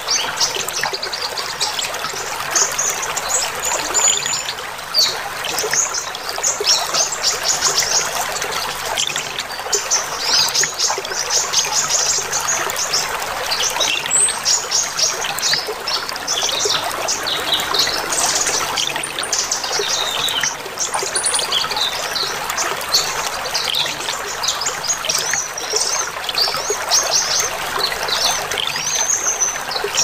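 Many short, high chirps and twitters of juvenile brown-throated sunbirds (kolibri ninja, 'konin'), calling continuously over a steady trickle of water.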